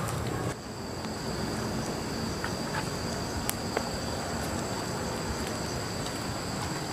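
Insects in tropical forest shrilling steadily at two high pitches over a low background rush, with a couple of faint clicks around the middle.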